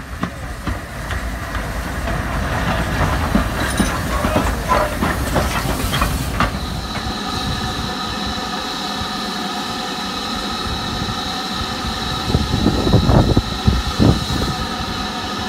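GWR steam tank locomotive passing close, with wheels clattering over the rails and steam hissing. After a sudden change, a steadier hum with held tones as a steam train approaches from a distance, with a few louder surges near the end.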